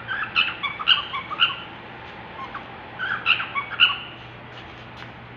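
Pet songbird singing in two short bursts of quick chirping notes, the first right at the start and the second about three seconds in.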